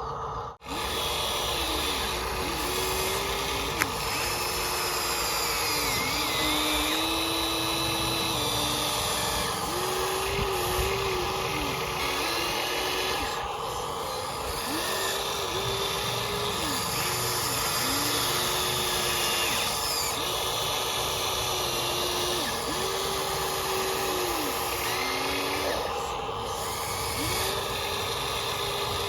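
Small electric motors and gearboxes of RC construction models whining, over and over. Each run starts with a rising whine, holds for one to three seconds, then drops away as the motor stops, like remote-controlled excavator and truck functions being worked in short bursts.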